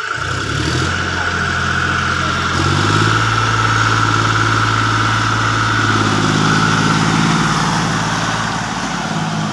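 John Deere 5050D tractor's three-cylinder diesel engine running under load as it drives through deep paddy-field mud, revving up about two and a half seconds in, holding the higher revs, then easing off near the end.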